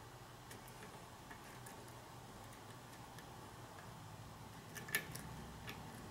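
Faint, scattered clicks of a hook pick and tension wrench working the pins of a Euro cylinder lock, with a sharper pair of clicks about five seconds in as the last pin, number 1, sets out of a deep false set and the lock opens.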